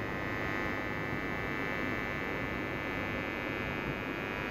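Steady electrical hum and buzz from a stopped train, with a thin high whine held constant over a low rumble.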